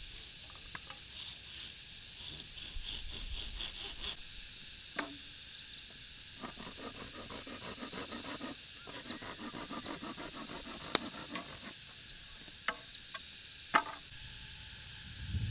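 Bamboo poles being worked by hand: runs of quick, rhythmic rasping strokes, with a few sharp knocks later on. A steady insect drone and short high chirps run behind.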